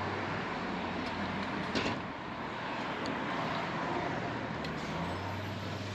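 Steady street traffic noise with a low hum, and a single knock about two seconds in.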